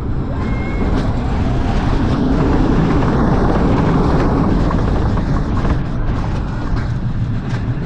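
Lightning Rod's roller coaster train rumbling and clattering at speed along its steel-topped wooden track, a loud steady noise with scattered clicks that swells about two to five seconds in.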